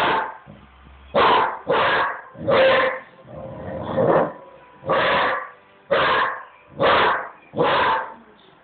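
Basset hound barking repeatedly in play, about nine barks at roughly one a second.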